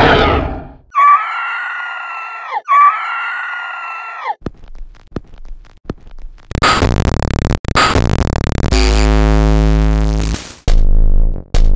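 A run of separate short horror sound effects, one after another: two long held pitched tones, a scatter of ticks, a burst of harsh noise, a low droning tone with many stacked pitches, then three loud pulses near the end.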